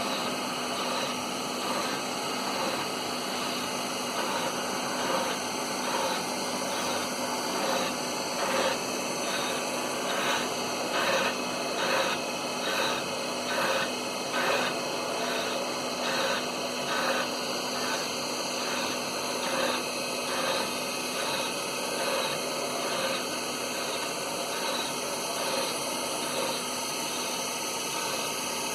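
Portable line-boring machine running steadily while boring out the inside of a ship's propeller shaft tube: a constant machine noise with a steady hum. Through the middle stretch it pulses about once a second as the cutter turns.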